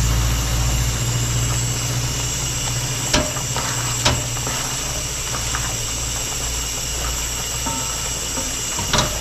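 A wooden dal ghotni knocking sharply against a cooking pot while mashing boiled pigeon peas: three knocks, about three seconds in, a second later, and near the end. A steady hiss with a low hum runs underneath.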